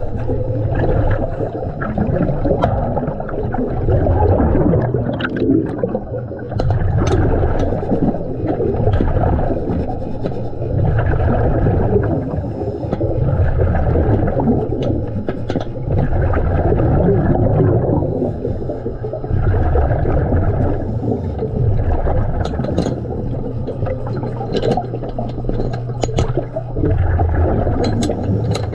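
Diver breathing underwater: air rushing and exhaled bubbles gurgling in slow swells about every four seconds, over a steady low hum, with a few light clicks.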